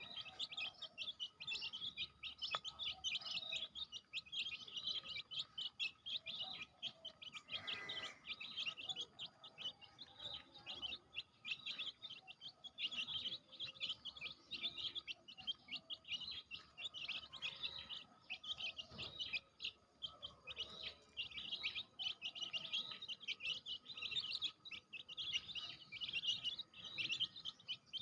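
A brood of baby chicks peeping continuously, many short high-pitched chirps overlapping into a constant chatter.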